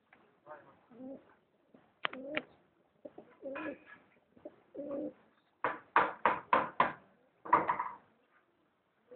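Domestic pigeons cooing in short low phrases, with a quick run of five loud sharp slaps about six seconds in and one more loud noisy burst just after, the loudest sounds here.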